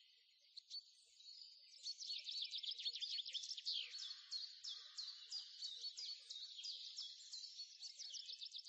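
Faint birdsong: a quick, continuous run of short high chirps, sparse at first and growing busier about two seconds in.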